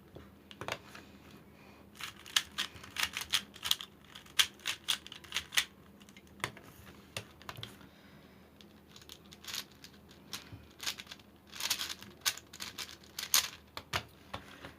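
A plastic 3x3 Rubik's cube being turned by hand: quick runs of sharp clicks and clacks as its layers are twisted, in irregular bursts with short pauses between them.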